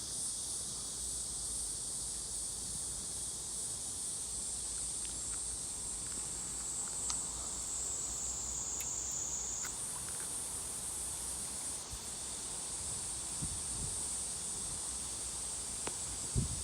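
A steady, high-pitched chorus of insects, with its pitch dipping slightly for a second or two and stepping back up about ten seconds in. A few faint ticks and a short low knock near the end.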